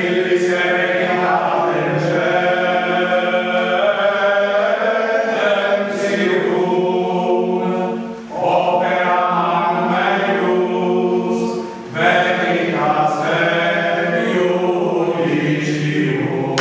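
A group of voices chanting Vespers in Latin, sung in long sustained phrases with short breaks about 8 and 12 seconds in.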